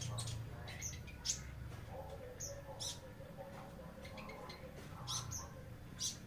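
Caged songbirds chirping: short, sharp, high notes scattered irregularly, with a faint lower warble about two to four seconds in.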